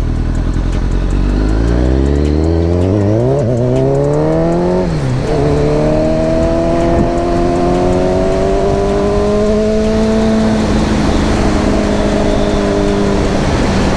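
Motorcycle engine accelerating hard, its pitch climbing for a few seconds, dipping sharply at a gear change about five seconds in, then holding a steady, slowly rising note at speed.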